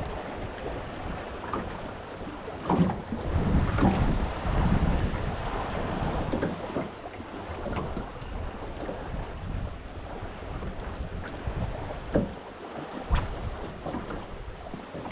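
Wind buffeting the microphone over water lapping against a small boat, with two sharp knocks near the end.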